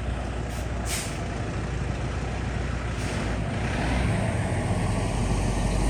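Heavy diesel machinery or truck engine running steadily, with a short sharp hiss about a second in. The engine grows a little louder in the second half.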